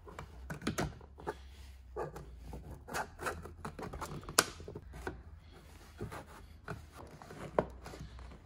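Plastic trim pry tool working under the snap-fit plastic window-switch surround of a Fiat Grande Punto door panel: scattered clicks and scrapes of plastic on plastic as the clips are worked loose, with one sharper snap about halfway through.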